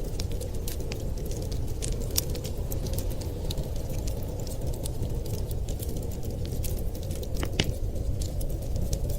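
Wood fire crackling in a fireplace: scattered small pops and snaps, with one sharper pop about seven and a half seconds in, over a steady low rumble.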